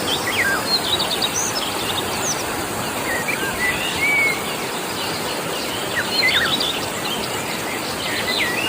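Steady rush of a clear river's flowing water, with birds chirping and calling throughout in short, quick notes.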